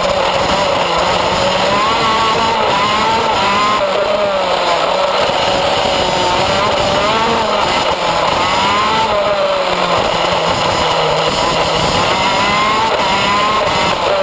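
Shifter kart's two-stroke engine heard from on board at racing speed, its pitch climbing again and again as it accelerates out of corners and falling back between.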